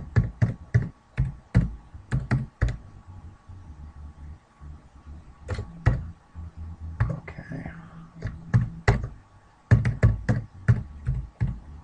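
Computer keyboard keystrokes as a password is typed and then typed again to confirm it. The keys come in bursts of quick clicks, with a pause of about three seconds early on.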